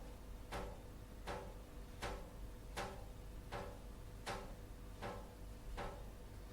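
Water dripping at a steady, even pace, about one drop every three-quarters of a second, eight drops in all. Each drop lands with a short, slightly pitched plink, over a low steady rumble.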